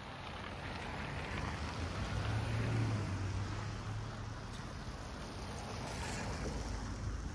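City street traffic: a motor vehicle passing close by, its low engine hum swelling a couple of seconds in and fading again over a steady rush of tyre and traffic noise.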